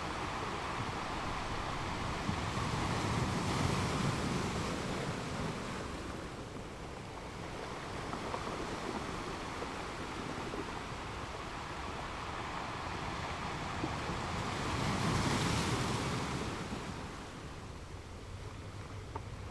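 Sea waves breaking on the shore, with a steady wash of surf that swells twice: once about three to four seconds in and again, loudest, about fifteen seconds in, then fades back.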